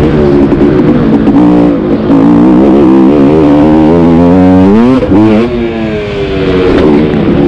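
KTM 300 XC two-stroke dirt bike engine running hard under changing throttle. The revs climb sharply about five seconds in, then fall away.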